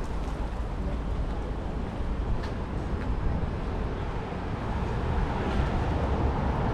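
City street traffic: a steady rumble of passing motor vehicles, growing gradually louder in the second half.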